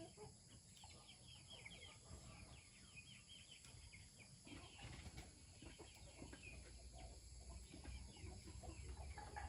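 Faint clucking of chickens, with scattered short chirps, over a low steady background rumble.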